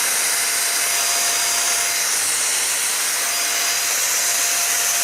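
Midea MVC-SC861B 2-in-1 stick vacuum cleaner with its 600-watt motor running steadily, a loud even rush of air with a high motor whine over it.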